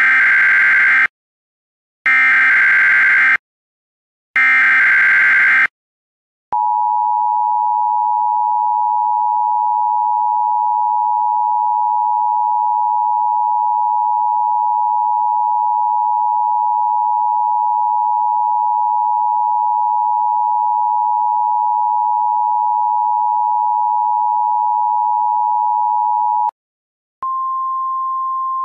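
Emergency Alert System signal: three short bursts of screeching data tones (the SAME header), then the long, steady two-tone attention signal, which stops about 26 seconds in and gives way to a single steady tone a little higher in pitch.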